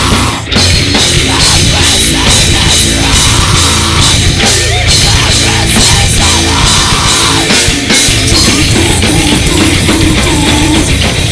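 Death metal band playing live: drum kit and heavily distorted electric guitars, loud and continuous.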